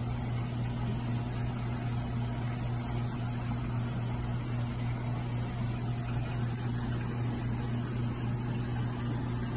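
Steady low hum of aquarium pumps and filtration equipment running, with a constant low tone that does not change.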